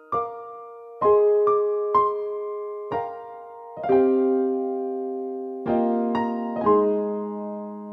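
Background music: a slow, gentle keyboard melody of single struck notes, each ringing and fading, with a few chords.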